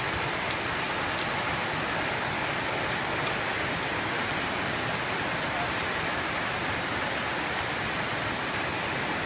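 Heavy tropical rain pouring steadily onto a concrete yard and plants: an even hiss at a constant level, with a few sharper drop hits.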